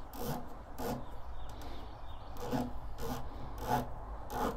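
Windage turret of a Discovery Optics VT-T riflescope being turned by hand during a horizontal tracking check, in about seven short, uneven strokes whose clicks run together into a rasping ratchet.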